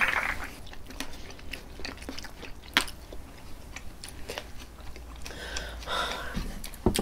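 Close-up chewing and mouth sounds of food being eaten, with scattered small clicks.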